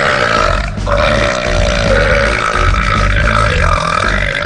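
A man's long, drawn-out burp. It breaks briefly about a second in, then carries on for over three more seconds, wavering in pitch.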